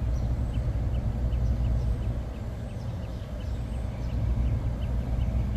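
Outdoor AC condensing unit running: a steady low hum from its compressor and condenser fan motor. Faint, short, high chirps repeat a few times a second.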